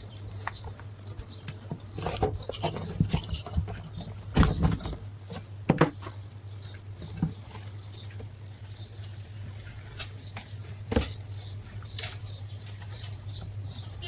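Irregular small clicks, taps and knocks, like parts being handled, over a steady low hum.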